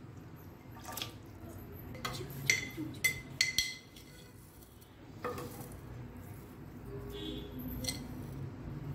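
A metal ladle and spoon clinking against glass kitchenware: a cluster of sharp ringing clinks a couple of seconds in, another clink about five seconds in, and soft handling noise between.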